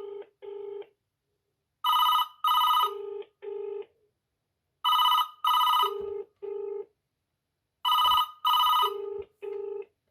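Alcatel OneTouch Display landline telephone's electronic ringer going off in a double-ring pattern, two short high-pitched bursts about every three seconds, four times. After each pair come two lower beeps, the double-ring ringback tone heard from the calling phone.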